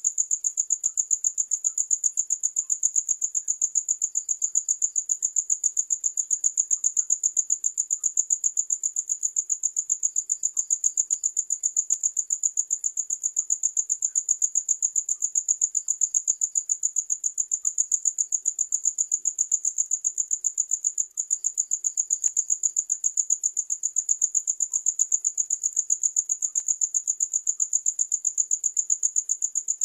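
Cricket chirping: a high-pitched trill repeating in an even, rapid pulse of about four chirps a second. It drops out for an instant about two-thirds of the way through.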